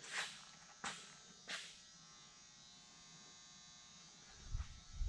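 Faint, steady electrical buzz. Three brief soft swishes come in the first two seconds, and two low thumps come near the end.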